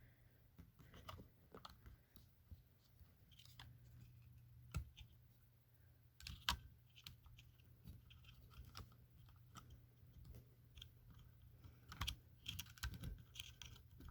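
Faint, scattered small clicks and taps of plastic being handled, from batteries being fitted into a small portable alarm's battery compartment, over a faint steady low hum.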